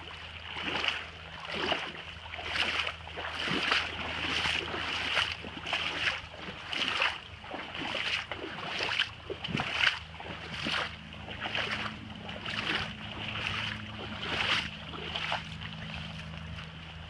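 Footsteps wading through floodwater, a sloshing splash with each stride in a steady walking rhythm, a little over one a second.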